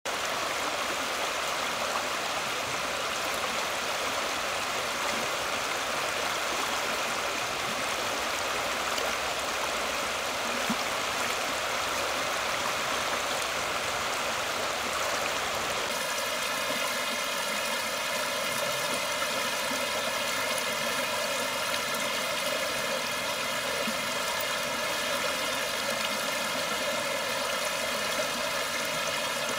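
River water running steadily over rocks and gravel in the shallows. About halfway through the sound changes and takes on a hollow tone.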